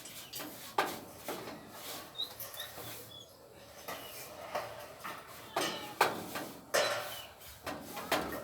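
Irregular knocks and scrapes of hand work with building materials, with a few short high bird chirps a little after two seconds in.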